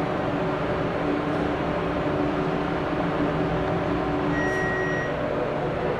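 Schindler hydraulic elevator running, a steady hum with several low tones from its pump motor. A single electronic beep sounds for under a second about four and a half seconds in.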